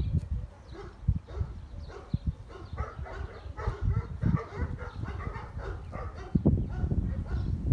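Saint Bernard puppies yipping in short, scattered calls, busiest around the middle, over a low rumble.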